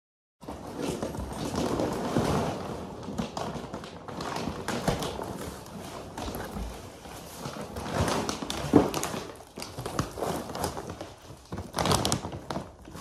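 Rustling and crinkling of a cardboard shipping box and its packing being unpacked by hand, with scattered knocks and thumps; the loudest is a sharp knock about nine seconds in. Near the end a large bag of dry dog food crinkles as it is lifted out of the box.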